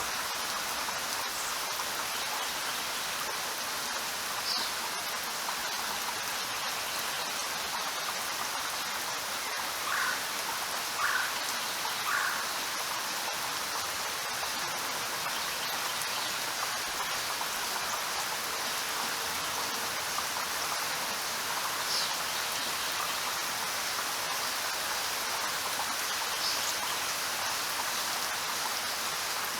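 Steady rain falling, an even hiss of drops. A few short high-pitched calls stand out briefly, three of them about a second apart midway through.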